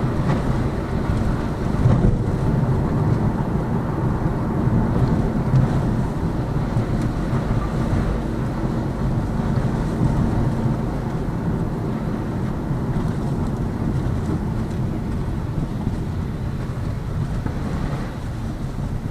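Road and tyre rumble inside the cabin of a Lada Vesta Cross driving over a rough road, with a couple of slightly louder bumps in the first few seconds. The car has new shock struts and summer tyres, and this is the stretch where the suspension used to knock.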